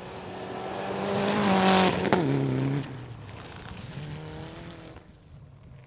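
Mitsubishi Lancer Evolution rally car's turbocharged four-cylinder engine at full throttle, growing louder as it approaches. About two seconds in there is a sharp pop and the revs drop abruptly, then the engine fades as the car pulls away, picking up revs again further off.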